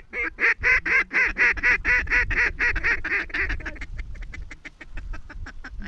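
Hunter's mallard duck call blown in a fast, even run of loud quacks, about five a second, going into a quieter, faster chatter of about ten a second for the last two seconds, the hail-and-feed calling used to pull passing mallards in.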